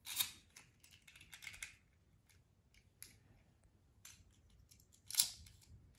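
Faint clicks and rattles of small plastic parts as Beyblade tops are handled and set onto their launchers. There is a quick run of clicks in the first couple of seconds and a sharper click about five seconds in.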